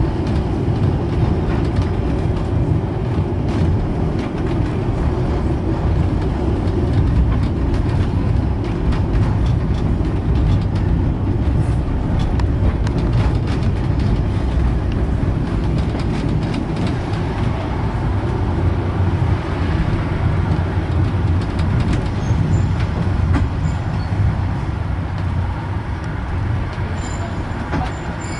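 Blackpool Western Train heritage tram running along the promenade tramway, heard from on board: a steady low rumble of wheels on rail and traction equipment, with scattered faint clicks.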